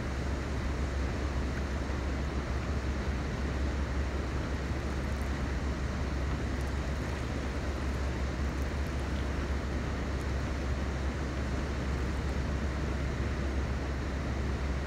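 Steady, unchanging low rumble with an even hiss over it.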